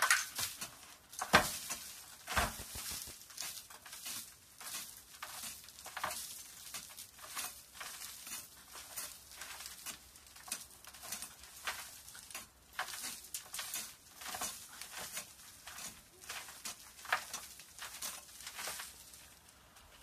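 Pickaxe scraping and chipping at a soft rock cave ceiling in irregular strokes, with loose grit pattering down. The heaviest knocks come in the first few seconds.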